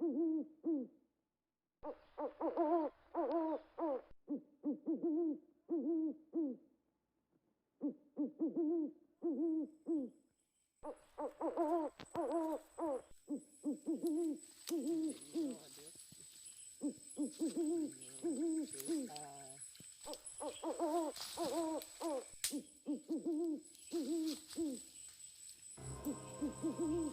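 An animal's hooting calls, repeated in quick runs of several wavering notes, with short breaks of dead silence between runs. A thin, steady high whine runs underneath from about the middle on.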